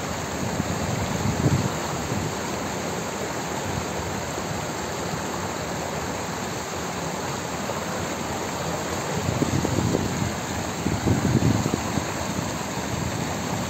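Water rushing steadily over a stepped cascade of low stone weirs, a constant even rush of falling water. A few low gusts of wind buffet the microphone, loudest about ten and eleven seconds in.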